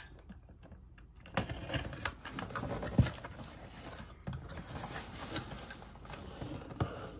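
A cardboard shipping box being opened by hand: the packing tape is slit and the cardboard flaps pulled open, with scraping, crackling and tapping. There is a sharp knock about three seconds in.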